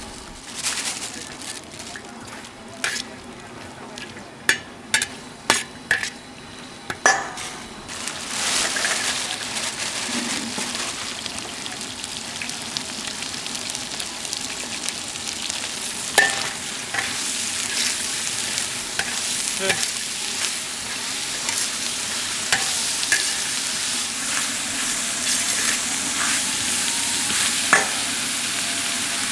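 A long-handled steel ladle knocks and scrapes a few times in a large wok of hot oil. About eight seconds in, a steady loud sizzle starts as sliced pork belly is stir-fried in the oil, with occasional clinks of the ladle against the wok.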